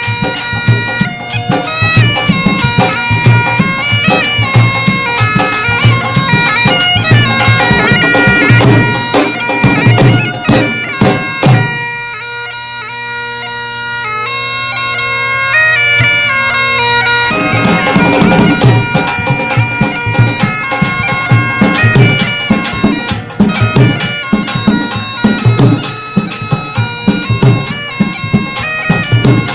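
Background music: a reedy wind-instrument melody over a drone, with a drum beat. The drums drop out for a few seconds about twelve seconds in, then come back.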